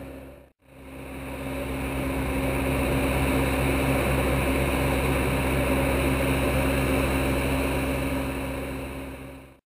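A steady mechanical hum with a constant low drone over a hiss, like an engine running. It drops out briefly right after the start, fades back in over about a second, and fades away near the end.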